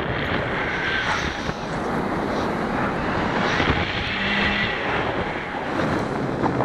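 Wind rushing over the helmet-camera microphone of a paraglider in flight, a steady loud rush with a few faint brief tones above it.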